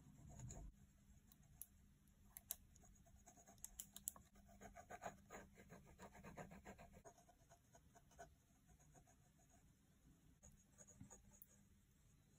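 Faint scratching of a 0.7 mm mechanical pencil lead on sketchbook paper as short sketching strokes, busiest in the middle and again near the end.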